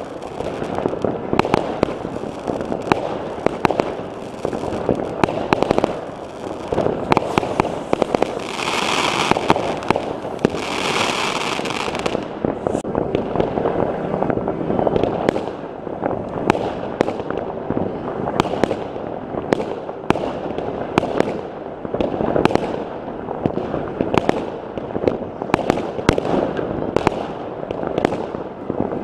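New Year's Eve fireworks going off all around: a dense, continuous volley of bangs and crackles from rockets and firecrackers, with two stretches of hissing about nine and eleven seconds in.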